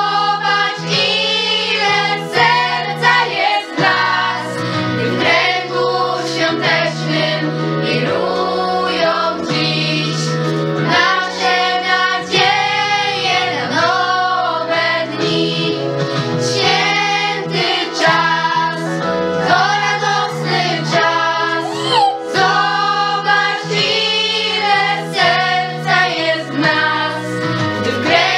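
A group of young girls singing a Christmas song together as a small choir.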